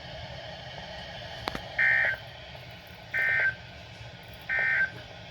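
NOAA Weather Radio sending the EAS end-of-message code: a sharp click, then three short bursts of two-tone warbling data about a second apart, marking the end of the broadcast message.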